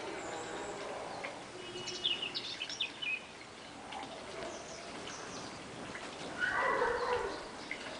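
Small birds chirping in a quick run of high notes about two seconds in, over a steady outdoor background. Near the end comes a louder pitched cry lasting about a second.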